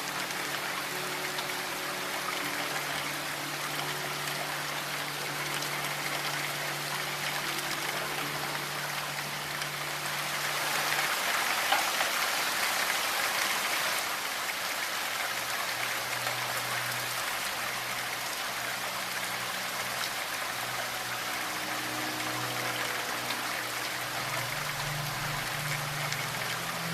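Steady rain with a soft sustained ambient drone of low held tones underneath; the rain swells briefly around the middle and the held tones shift to a new chord about 11 seconds in.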